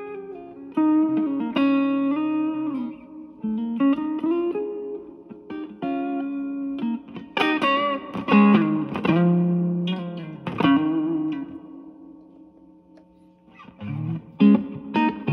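Fender Stratocaster with three single-coil pickups played through a Yamaha THR10C modeling amp on its MINI model: single-note lines with bends and slides. A burst of strummed notes comes about halfway through and rings out to a fade, and new notes start just before the end.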